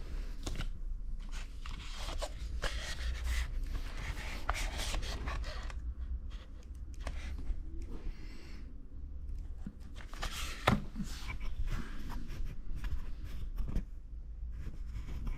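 Rustling, scraping and small clicks of product packaging being handled and opened, with a sharper click about ten and a half seconds in, over a steady low hum.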